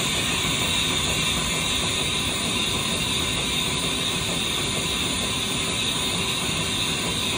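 Haas VR-11B CNC vertical machining center powered up and running, giving a steady hiss with a faint hum underneath.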